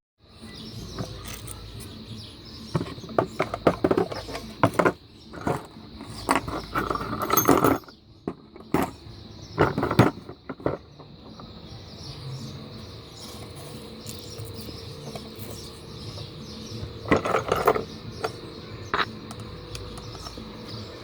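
Irregular clicks, knocks and scrapes of a blender's parts being handled and worked loose during disassembly, coming in several bursts, over a faint steady high tone.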